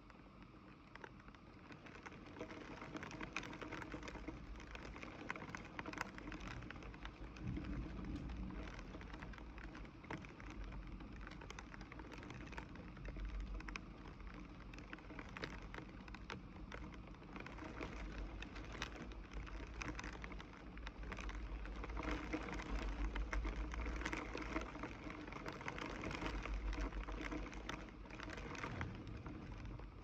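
Steady rain falling, many drops pattering and ticking on a hard surface, with an uneven low rumble that comes and goes underneath.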